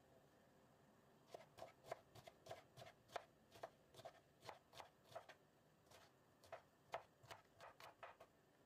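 Kitchen knife slicing whole young broad bean pods on a wooden cutting board: a run of faint, crisp cuts, about three or four a second, starting about a second in.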